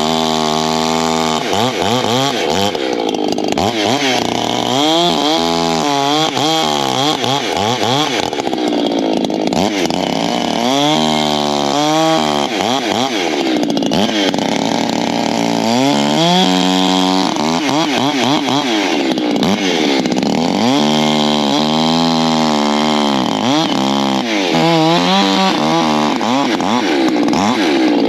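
Two-stroke Echo gas chainsaw bucking firewood logs: the engine runs loud throughout, its pitch climbing and dropping about six times as it revs and takes the load of each cut.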